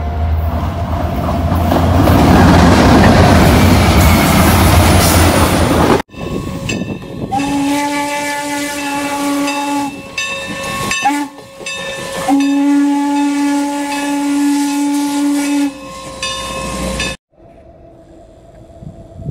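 A train passes close with a loud rolling rumble and a steady low engine hum. After an abrupt cut, a steam locomotive's whistle blows two long blasts with a short toot between them. A second abrupt cut drops to a much quieter outdoor background near the end.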